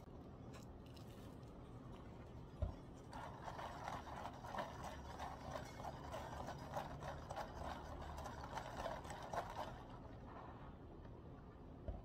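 Ice cubes rattling and clinking against a plastic cup of iced coffee as a straw stirs them fast, for about seven seconds. A single knock comes just before the stirring starts.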